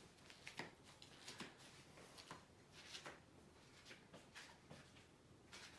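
Near silence: room tone with faint scattered ticks and rustles.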